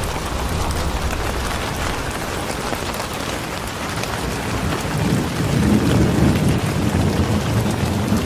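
Steady rain falling, with a low rumble of thunder swelling about five seconds in.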